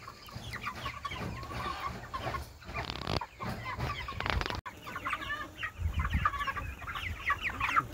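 A flock of Cornish cross broiler chickens clucking and chirping in many short, overlapping calls while they feed, with a brief break about halfway through.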